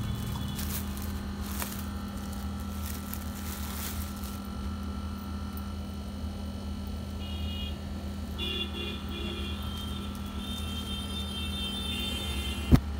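Clear plastic packaging crinkling as a garment is pulled out of its packet, followed by softer rustling of the fabric being unfolded, over a steady low hum. A single sharp click near the end is the loudest sound.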